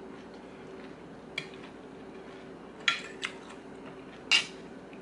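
Metal spoon and fork clinking and scraping against a plate: four sharp clinks, the loudest about four seconds in, over a faint steady hum.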